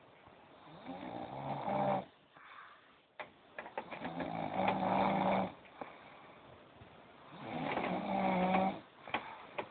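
A man snoring in his sleep: three long snores, each swelling and fading, about three seconds apart.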